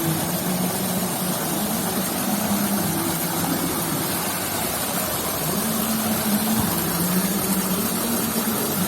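Steady low engine hum whose pitch shifts up and down now and then, over a constant rushing noise.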